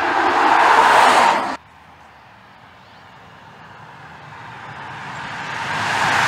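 Škoda Octavia RS Combi with its 245 hp turbocharged petrol four-cylinder driving past, engine and tyre noise growing louder as it nears. The sound cuts off abruptly about a second and a half in. A second approach then rises steadily from faint to loud.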